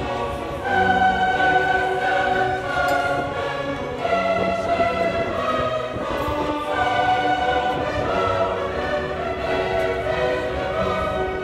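Music with a slow melody of long held, sung-sounding notes over an accompaniment.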